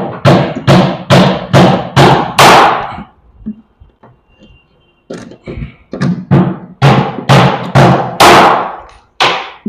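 Repeated sharp knocks on a plywood sofa arm panel as it is struck loose from the temporary nails holding it, about two knocks a second. They stop for a couple of seconds about three seconds in, then start again, with a last knock near the end.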